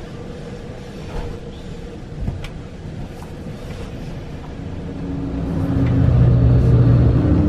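Freight train passing close by on the adjacent track, heard through a carriage window: its wagons rumble and knock past. About five seconds in the sound grows louder, with a steady engine drone, as a diesel locomotive comes alongside.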